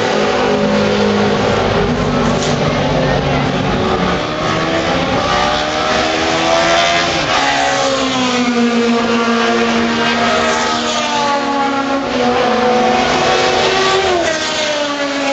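Several racing car engines running hard as the cars go by on the track. The engine notes rise and fall, and one drops sharply near the end.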